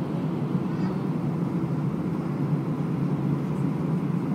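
Steady low cabin noise inside an Airbus A320 taxiing after landing: the jet engines at low power and the rumble of the aircraft rolling on the ground, heard from inside the cabin.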